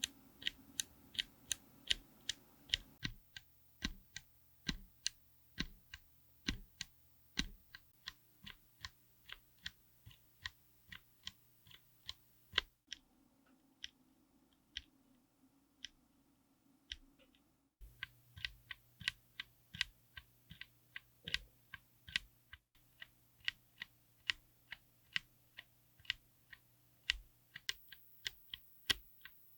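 Mechanical keyboard fitted with tactile switches being typed on: single keystrokes at an even pace of about two a second. The background changes abruptly a few times between takes.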